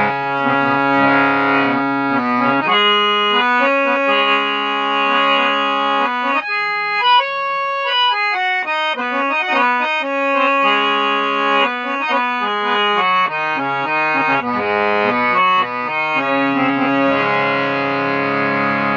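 Hand-pumped harmonium playing a melody over held reed chords. Around six to eight seconds in the chords fall away to single high notes, then the full chords return.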